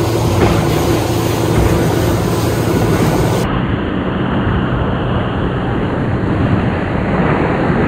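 Fishing boat running at speed on open sea: a steady engine drone under water rushing and splashing along the hull. The sound turns duller about three and a half seconds in.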